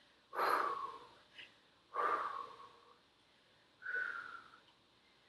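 A woman breathing out hard through her mouth three times, about two seconds apart, in rhythm with exercise repetitions.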